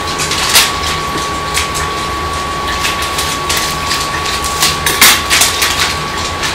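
Plastic bag of shredded cheddar cheese crinkling as it is cut open with scissors and handled, in irregular short crackles. Underneath runs a steady hum with a thin, high, steady whine.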